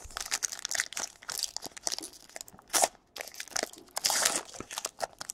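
Foil trading-card pack wrapper crinkling as it is handled, with cards sliding and flicking against each other. The sound comes as short, irregular scrapes and crackles, loudest about three and four seconds in.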